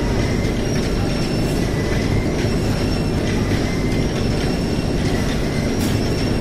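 Truck Loader 16P-DC belt conveyor bag loaders running under load: a steady, loud rumble of belts over rollers, with a thin high squeal that comes and goes every second or so and an occasional faint click.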